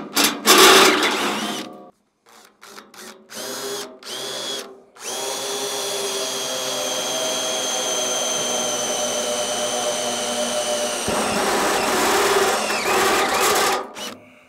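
Makita cordless drill driving a step bit through the sheet steel of a truck lockbox, widening a hole to the next step. First a few short bursts, then a steady run of about nine seconds; the cutting grows rougher and louder for the last few seconds before the drill stops.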